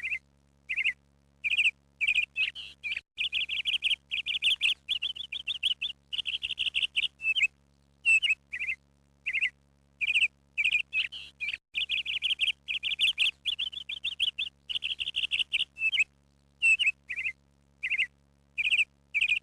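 Small birds chirping and twittering: short, sharp, high notes, some single and spaced apart, others running together in quick dense trills lasting a second or two.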